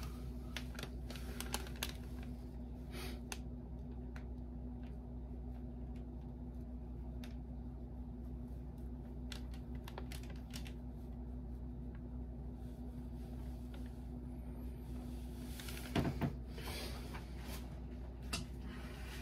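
Sparse small clicks and taps from gloved hands working a small metal tool through wet acrylic paint on a board, over a steady low hum. A couple of louder taps come near the end.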